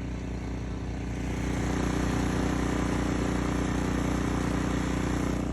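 An engine running steadily, getting louder about a second and a half in.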